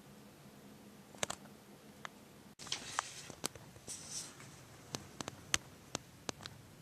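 A few scattered light clicks and taps with a short rustle about three seconds in.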